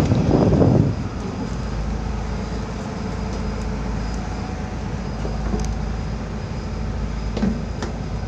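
A ship's engine running with a steady low rumble. A brief loud rushing noise comes in the first second.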